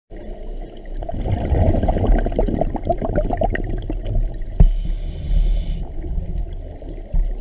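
Scuba diver breathing through a regulator, heard underwater: a stretch of bubbling from the exhaled air, then about a second of hissing inhalation, with a single knock just before the hiss.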